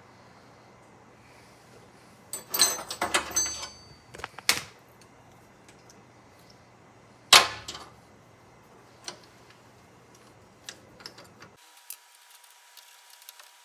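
Metal lathe tooling being handled while a tap is fitted into the tailstock chuck: a cluster of ringing metal clinks and knocks a few seconds in, one sharp clank about halfway, then a few light ticks.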